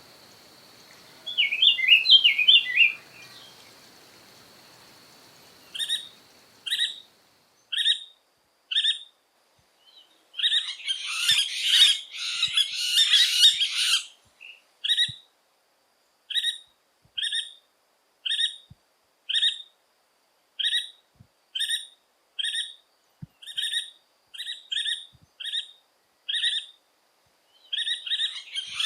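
Yellow-fronted woodpecker (pica-pau-benedito) calling: short sharp calls repeated about once a second, broken by a few seconds of fast chattering. Just before the calls start, a brief twittering from a different bird is heard.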